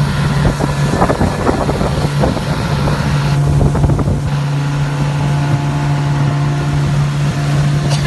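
Small motorboat's engine running steadily under way, an even drone, with wind buffeting the microphone.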